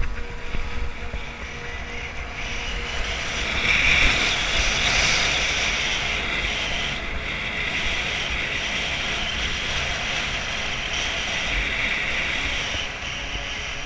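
Skis sliding and scraping across snow in a long steady hiss that builds up a couple of seconds in, is loudest a few seconds later and eases off near the end.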